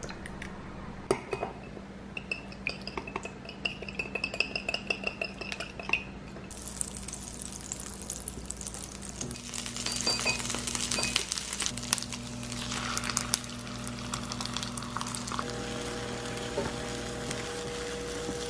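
Eggs being beaten in a ceramic bowl, a utensil clinking quickly against it with a light ringing. About six seconds in this gives way to rice and egg sizzling in melted butter in a frying pan while being stirred, with scattered scrapes and clinks.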